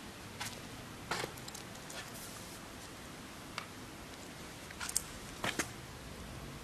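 A handful of short, scattered clicks and taps over a steady faint hiss, the loudest few coming close together near the end.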